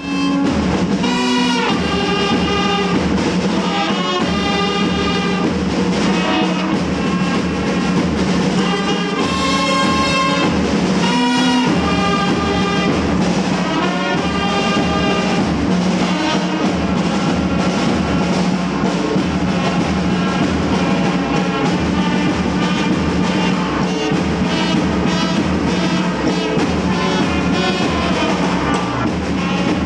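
A small brass group of trumpets and a euphonium playing a tune together, over a steady low beat.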